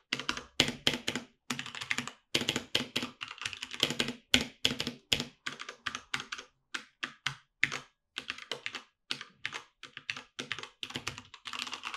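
Typing on an Asus ROG Falchion 65% mechanical keyboard with linear Cherry MX Red switches: a fast, irregular run of keystrokes with a few brief pauses.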